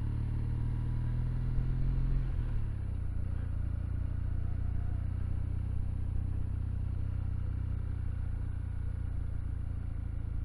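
Kawasaki W800's air-cooled parallel-twin engine running as the motorcycle cruises at low speed; the engine note drops about two seconds in, then holds steady.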